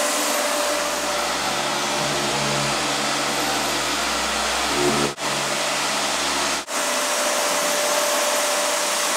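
Floor sander motor running steadily with an even whooshing noise, cut off briefly twice past the middle.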